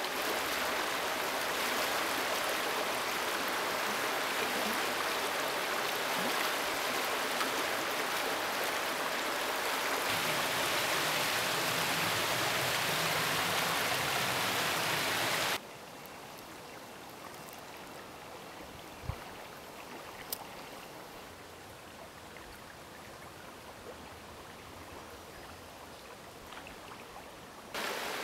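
River water rushing over shallow riffles, a steady rushing hiss. A little past halfway it drops suddenly to a softer flow, and it comes back up just before the end.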